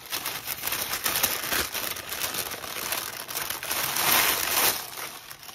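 Tissue paper crinkling as hands unfold it and lift it off a stack of fabric, easing off near the end.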